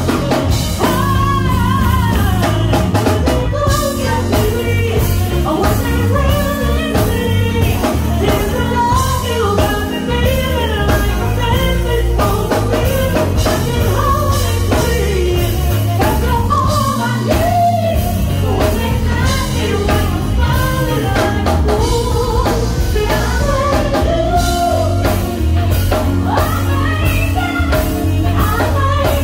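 Live band playing with singing: vocals over a drum kit and electric guitar, loud and continuous.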